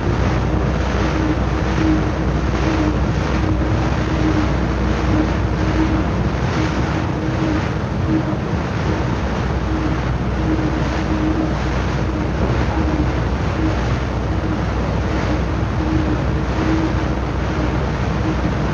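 Wake of a World War II aircraft carrier, heard from the quarter-deck: continuous churning rush of water astern with a steady low hum beneath. The sound is dull, with no treble, as on an old 78 rpm disc recording.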